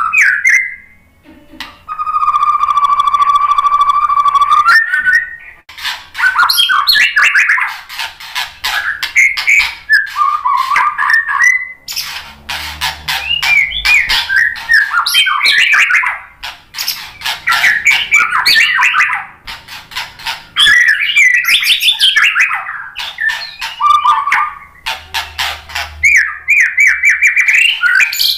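White-rumped shama singing a long, varied song. A few seconds in it holds one steady whistle, then runs into fast, changing phrases full of sharp clicking notes, with only brief pauses.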